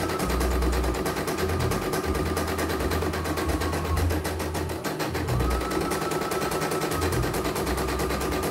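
CNY computerized embroidery machine stitching a design: a rapid, steady chatter of needle strokes over the hum and whine of its motors. The whine breaks off about four seconds in and comes back about a second later. It runs smoothly, with no fault heard.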